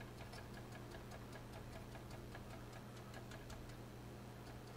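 Faint, rapid dabbing of a deerfoot stippler brush on a plastic model's hull, several light taps a second, over a low steady hum.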